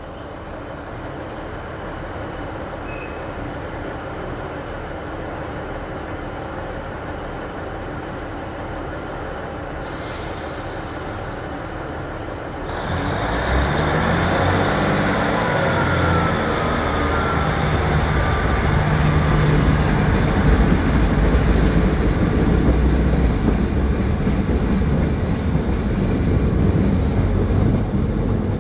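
A train running through a station: a steady rumble that builds, a burst of high hiss about ten seconds in, then a much louder, deeper rumble with low engine-like tones and faint gliding squeals as it passes close by from about thirteen seconds.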